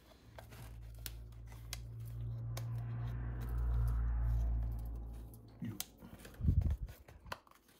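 Handling noise from a Nikon S rangefinder camera as the locking keys on its base plate are turned to release the back: a low steady rumble that swells and fades over about five seconds, then a few small metal scrapes and clicks about six seconds in.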